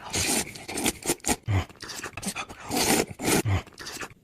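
Close-miked eating noises: wet mouth clicks and smacks with two longer, louder noisy bursts, one just after the start and one around three seconds in.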